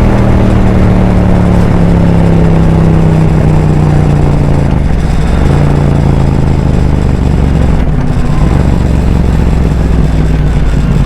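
Yamaha MT-07's 689 cc parallel-twin engine through an Arrow aftermarket exhaust, running at steady revs on the move. The revs dip briefly about halfway through and pick back up, and the sound cuts off suddenly at the very end.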